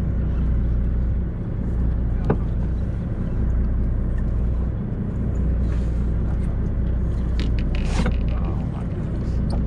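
Steady low engine rumble of the charter fishing boat. A sharp click comes about two seconds in, and a brief clatter near the end.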